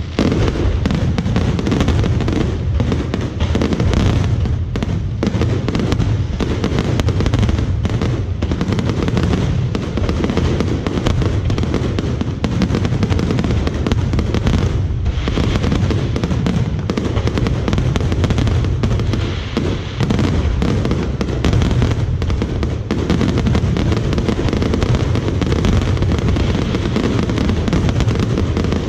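Fireworks going off continuously: a dense run of bangs and crackling, one after another without a break.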